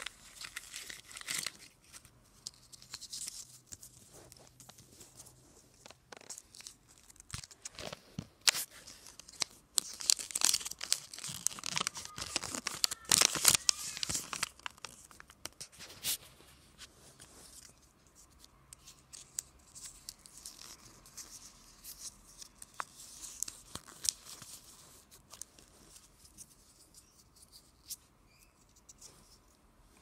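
Foil wrapping of a Kinder Joy egg crinkling and tearing as it is peeled and handled, in irregular crackly bursts that are busiest about halfway through and sparser in the last third.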